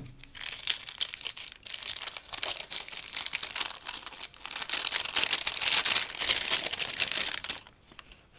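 A small gift package being unwrapped by hand: a dense run of crinkling and tearing of its wrapping, busiest in the second half and stopping shortly before the end.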